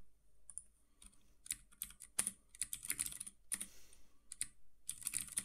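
Typing on a computer keyboard: irregular key clicks in short quick bursts.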